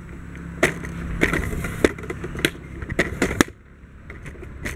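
Footsteps, a sharp step a little over half a second apart, five or six in all, over a low steady rumble.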